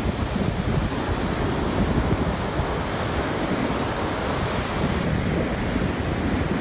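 Atlantic surf washing steadily on the beach, mixed with wind buffeting the microphone as a low, continuous rumble.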